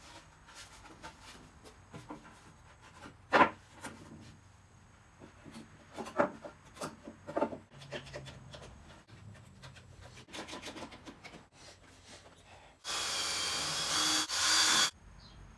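Pine and spruce table parts knocked and shifted into place, with scattered sharp wooden knocks and clicks. Near the end a cordless drill runs for about two seconds, with a short break, driving screws into the table.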